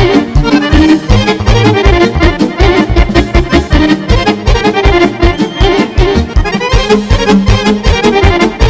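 Live Balkan folk band music: a chromatic button accordion plays fast lead runs, with saxophone and keyboard, over a quick, steady beat.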